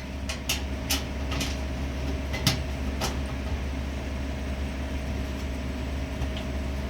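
Handful of light clicks and taps in the first three seconds from small screws and a Phillips screwdriver being handled at a washer-dryer's back cover, over a steady low hum.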